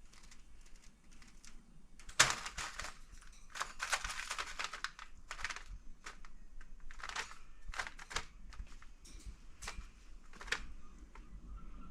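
A cockatiel clambering on and pecking at a cardboard nest box: a run of scratches, clicks and crinkles of cardboard and paper, busiest from about two to six seconds in, then scattered taps.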